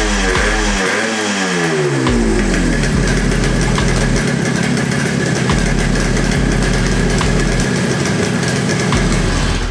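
Yamaha RD350 two-stroke twin engine revved in a few quick throttle blips, then settling to a steady idle. It is running on its newly fitted CDI ignition with borrowed, untuned carburettors.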